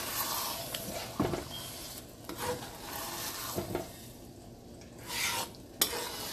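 Wooden spatula stirring and scraping minced meat around a frying pan, the mince frying with a light sizzle as it cooks dry. One sharp knock of the spatula against the pan comes near the end.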